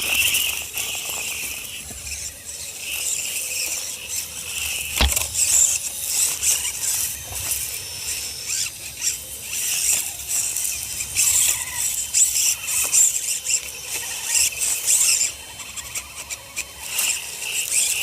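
Electric motor and gearbox of a radio-controlled crawler truck whining in uneven bursts as the throttle is worked on a climb, with one sharp knock about five seconds in.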